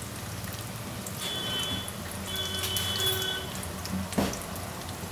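Chopped onions and green chillies sizzling in hot oil in a stainless-steel kadai, a steady crackling hiss. A faint high tone sounds twice in the middle, and there is a soft knock near the end.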